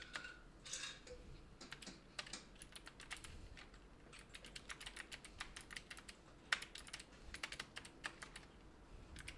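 Computer keyboard typing, faint, in quick runs of keystrokes separated by short pauses.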